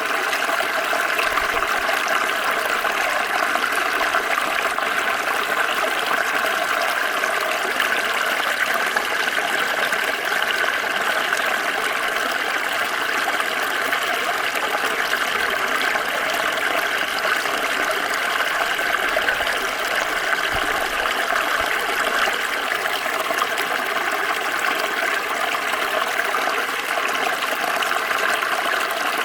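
Water running steadily over stones in a small stream, an even babbling and rushing that doesn't change.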